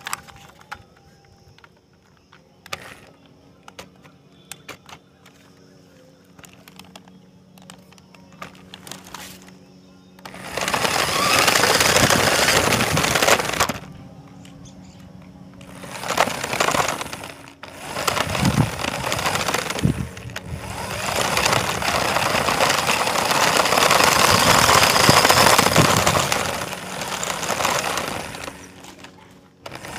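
RC car's tyres and motor heard from a phone riding on the car: first only light clicks and a faint steady hum, then from about ten seconds in a loud, rough rumble as it drives over gritty concrete. The rumble comes in several runs that stop and start, the longest near the end.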